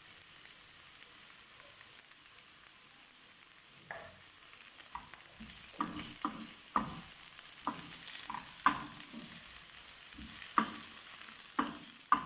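Onions, garlic and ginger sizzling steadily in hot oil in a frying pan. From about four seconds in, a utensil stirring them knocks and clicks against the pan at irregular intervals.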